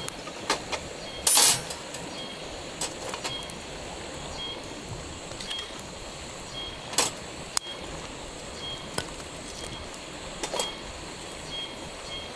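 Twig fire crackling in a small folding steel wood stove, with scattered sharp cracks and metal clinks as the wire grate and pieces of wood are set on it. The loudest is a short clatter about a second and a half in. A steady hiss runs underneath.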